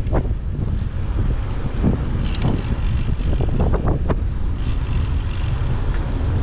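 Wind buffeting the camera's microphone during a ride, a loud steady low rumble, with a few short knocks or rattles about two seconds in and again near four seconds.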